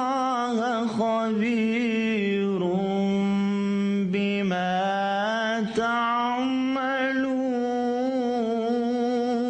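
A man reciting the Quran in the slow melodic tajweed style, drawing out long ornamented notes whose pitch wavers and bends, with a brief breath a little after four seconds and another near six seconds.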